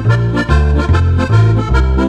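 Roland digital accordion playing a lively tune: melody and chords on the piano keyboard over left-hand bass notes that change in a steady rhythm, about two a second.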